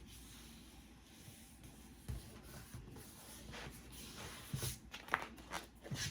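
Faint rustling and a few soft taps of paper being handled and pressed together while a paper gift bag is glued.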